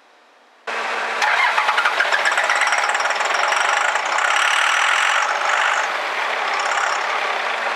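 A 2001 Dodge Ram's 5.9-litre Cummins inline-six turbodiesel started on ether: it cuts in abruptly about a second in, knocking unevenly at first, then runs on steadily with a high whine over it.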